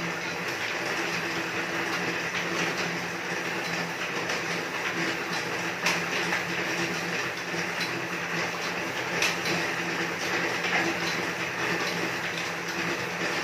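Elliptical cross trainer in steady use: the flywheel runs with a continuous mechanical whir and light clicks from the moving arms and pedals, with a sharper click about six seconds in and another about nine seconds in.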